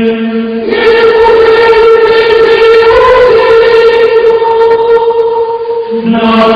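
Unaccompanied voices singing Hispanic (Mozarabic) liturgical chant in long held notes. A low note gives way about a second in to a higher note, which drops back to the low note near the end.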